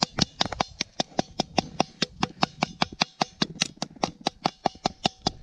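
Rapid, even metallic clicking, about six or seven clicks a second, each with a short ring, from rusted metal relic parts being worked by hand.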